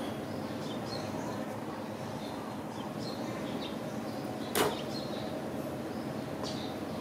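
Steady outdoor background hum with faint, scattered bird chirps, and a single sharp click a little past halfway through.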